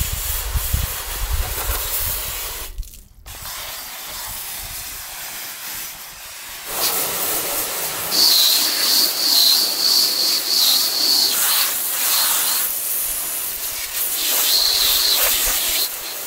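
Garden hose spray nozzle spraying water hard against the metal compartment and underside of a motorhome, a steady hiss. The spray cuts out briefly about three seconds in and comes on stronger about seven seconds in, with a high steady whistle from about eight to eleven seconds and again near the end.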